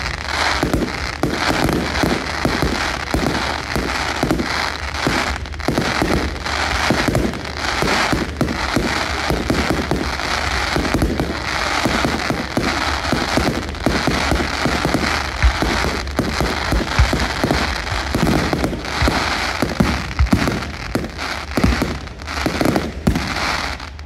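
Fireworks display going off: rapid, overlapping bangs and crackling without a pause.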